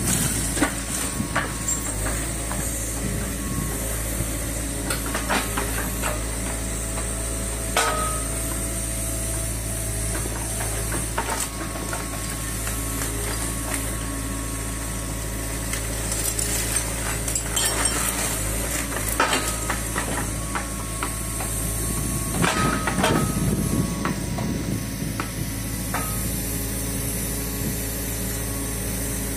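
Kobelco mini excavator running steadily while its grapple loads debris into a dump truck, with hydraulic hiss and irregular knocks and clunks of rubble and metal every few seconds.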